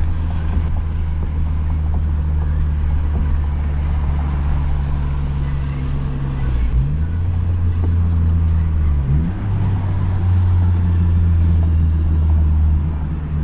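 Honda Fit's 1.5-litre four-cylinder engine pulling under load from inside the cabin, with a steady engine note. The pitch dips briefly and climbs again about seven and nine seconds in, as with gear changes.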